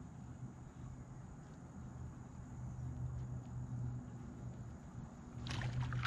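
A bass slams a Chatterbomb bladed jig at the surface right beside the kayak about five and a half seconds in, a sudden loud splash as the lure is almost out of the water. Before it only a steady low hum is heard.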